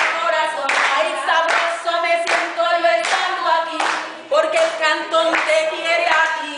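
A woman singing unaccompanied, with hand claps about once a second.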